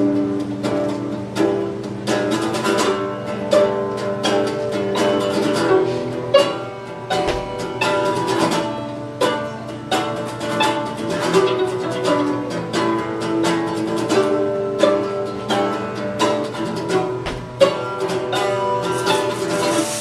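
Live instrumental music on plucked strings: a red hollow-body electric guitar playing picked notes and strums, with a second string instrument alongside, in a steady run of quick note attacks.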